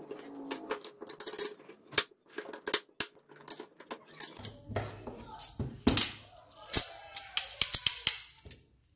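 Clicks, clinks and knocks of a homemade steel clamp of bent flat bar, threaded rod and wing nuts being handled and lifted off a wooden desk; the loudest knocks come about six and seven seconds in.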